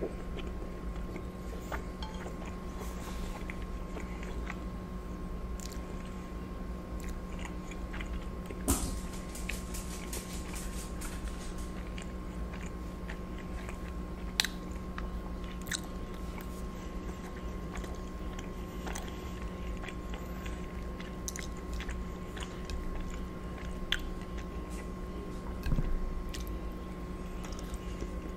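Close-miked chewing of soft lobster ravioli in lemon butter sauce, with wet mouth sounds and scattered sharp clicks, over a steady low hum.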